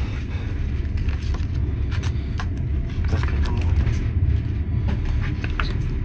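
Moving passenger train running, heard from inside a sleeping compartment: a steady low rumble with scattered light clicks.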